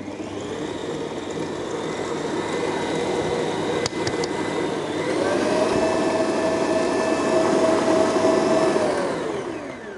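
Kenwood Major stand mixer's motor running as its beater mixes cake batter in a steel bowl. Its whine steps up in pitch about halfway through, then falls away as the motor winds down near the end.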